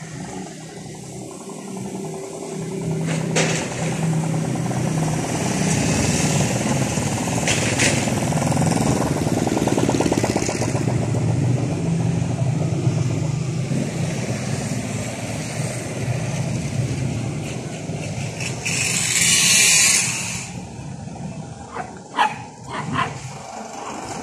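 A motor vehicle engine running nearby with a steady low hum, growing louder over the first few seconds and holding through the middle. Near the end there is a loud short burst of hiss, followed by a few sharp knocks.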